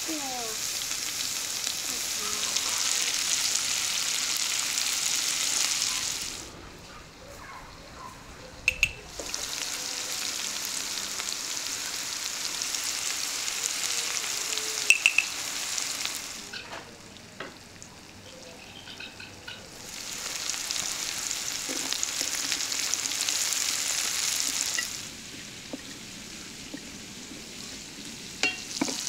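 Sliced onions sizzling in hot fat in a frying pan over a wood fire. The sizzle drops away and comes back three times, with a few sharp taps in between.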